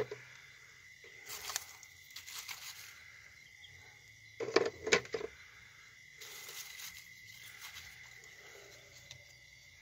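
Dry straw and corn husks rustling in a woven basket nest as a hand gathers hen eggs, with a few sharp clicks and knocks about four and a half seconds in. A faint steady high tone runs underneath.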